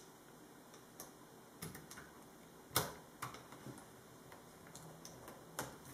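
Small screws and a screwdriver tapping and clicking against a laptop screen's metal mounting bracket as the screws are set in: a handful of light, separate clicks, the sharpest about three seconds in.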